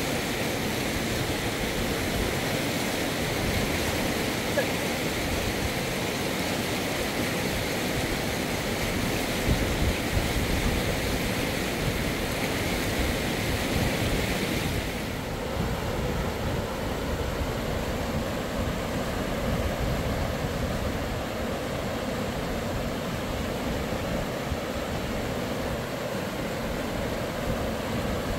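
Steady rushing of river water, a continuous even hiss that turns duller about halfway through.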